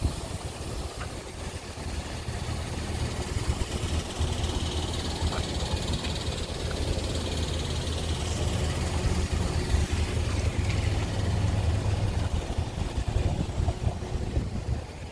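A steady low rumble of wind buffeting the microphone, over a parked car's engine idling. A faint high hiss rises for a few seconds in the middle.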